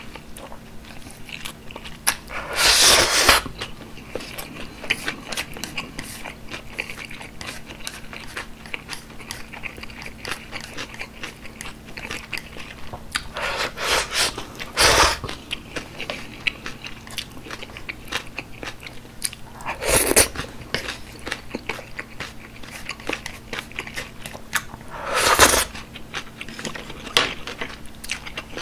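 Close-miked eating of black-bean-sauce (jjajang) ramen: steady wet chewing and mouth clicks, broken four times by loud slurps of noodles and sauce.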